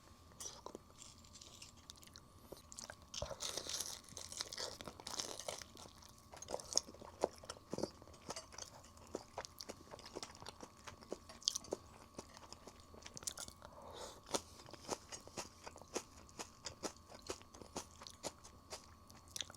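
Close-up crunching and chewing of crispy fried chicken: many short, sharp crunches of the battered skin as it is bitten and chewed.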